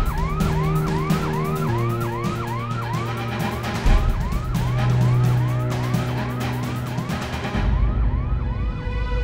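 Emergency alarm siren sounding a rapid series of rising whoops, about two a second, each dropping back sharply. This is the plant's alarm called for an evacuation to the muster points. The whoops fade out near the end while background music carries on.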